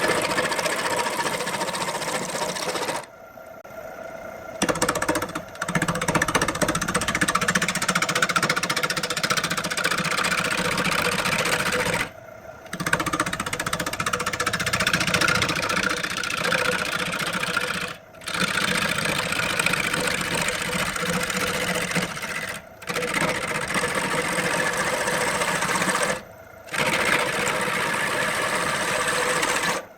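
Wood lathe running with a turning tool cutting into the spinning wood: a steady motor whine under a busy cutting rattle, cutting off abruptly for a moment several times.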